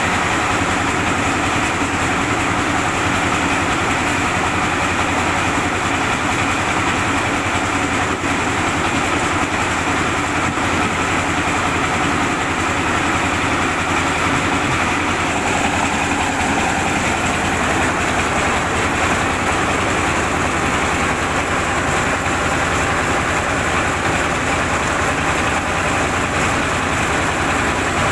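Vehicle-mounted rice mill running steadily, its engine driving the milling machinery while milled rice flows out of the chute.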